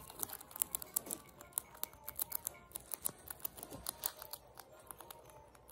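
Hairless rats crunching crisp dry flakes, a quick irregular run of small crisp crunches and clicks, several a second.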